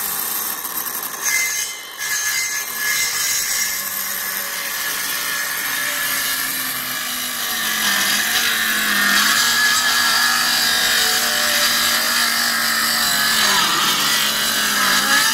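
Electric power saw running and cutting through a wooden ceiling board, its motor pitch dipping briefly now and then as it loads up in the cut.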